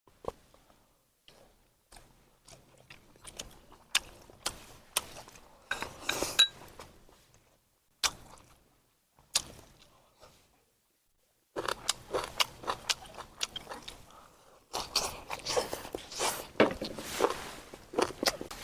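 A person eating: sharp clicks of utensils against dishes mixed with chewing and crunching, sparse at first, with a pause, then busier in the last several seconds.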